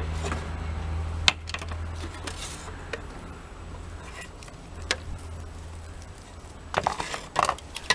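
Plastic clicks, knocks and rattles of an upright vacuum's dust bin and filter being handled as the dusty filter is pulled out, with a cluster of knocks near the end. A low rumble underneath stops about a second in.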